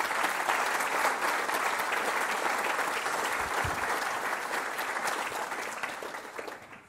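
Audience applause: many people clapping at once, dying away over the last second or so.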